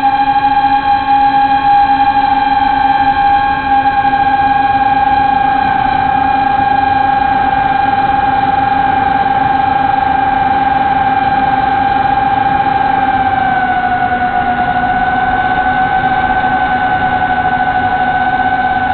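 Multirotor drone's electric motors and propellers whining steadily, heard from the camera mounted on the drone; the pitch drops slightly about 13 seconds in.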